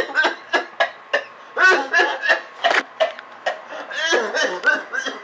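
A man's voice in short, broken outbursts, several a second with rising and falling pitch, reacting to being hit.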